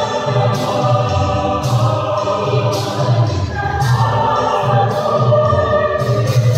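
A mixed choir of men's and women's voices singing a lively song in harmony over a steady low beat pulsing about twice a second.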